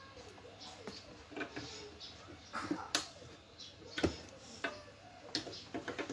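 Irregular light clicks and knocks from hands working on a dbx 224XL crossover's controls and cabling, about a dozen scattered taps with the loudest near three and four seconds in.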